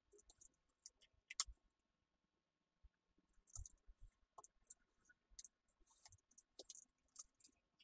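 Snap-off utility knife drawn along a steel ruler, slicing through laminated vinyl sticker on Sintra PVC foam board: faint, short scratchy cutting strokes, with a sharp click about a second and a half in and a brief pause before a quick run of strokes.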